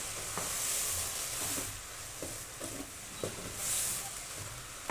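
Cabbage sizzling in a frying pan as it is stir-fried, a steady hiss with a few light knocks of the stirring spoon against the pan.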